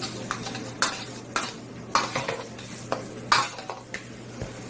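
Metal spatula scraping and knocking against a frying pan as diced squid is stir-fried, a stroke about every half second, over a steady sizzle.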